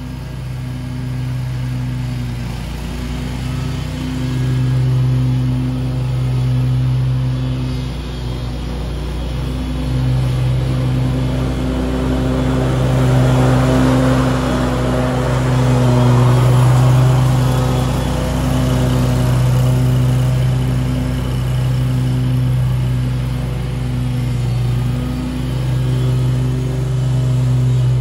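Scag Tiger Cat II zero-turn mower running at mowing speed with its cutter deck engaged. The engine's steady hum swells as the mower passes close, about halfway through, then fades as it moves away.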